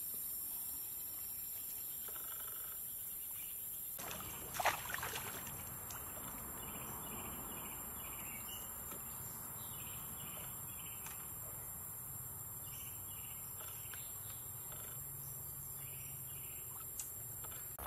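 Natural outdoor ambience: a steady high insect buzz with many short repeated chirps from birds or insects, and one brief loud noise burst about four and a half seconds in.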